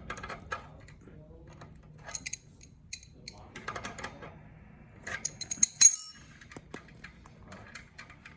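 Metal tool and bolt clinking and clicking as the trike wheel's axle bolt is loosened and taken off, in scattered clicks with the loudest cluster about five to six seconds in.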